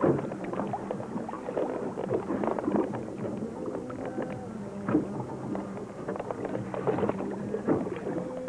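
A boat's engine running steadily at idle, with water splashing and slapping beside the hull in irregular bursts.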